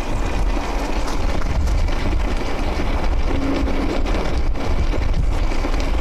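Steady rushing noise with a heavy low rumble: wind buffeting the microphone over a 1400-watt electric steamer that is boiling and venting steam from its outlet.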